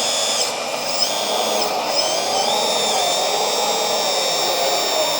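Electric hydraulic pump of a scale RC excavator running under load, its high whine stepping up and down in pitch a few times as the load on the arm changes, over the steady blowing of a 12-volt cooling fan.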